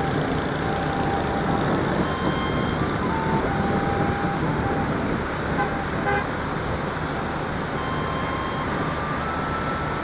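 Road traffic heard while riding a motorbike: steady rumble of engines, tyres and wind, with a few short, faint horn toots from the surrounding scooters and cars.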